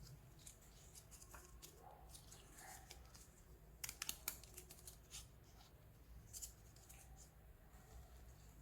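Faint clicks and rustles of a plastic miniature kitchen toy set being unboxed and handled, with a quick cluster of clicks about four seconds in and a couple more near six and a half seconds.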